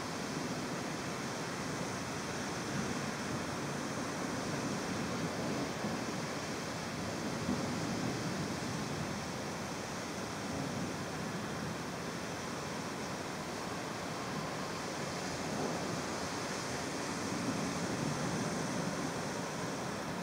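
Steady rushing noise of a thunderstorm's heavy rain and wind, swelling a little a few times.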